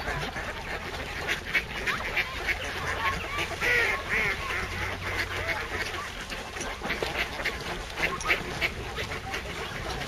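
A dense flock of ducks quacking over one another as they crowd to be fed, many short overlapping calls with a few louder ones about four seconds in.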